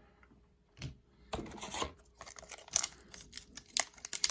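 Hockey card pack's foil wrapper being torn open: a brief rustling tear a little over a second in, followed by a string of sharp clicks and taps as the cards are handled.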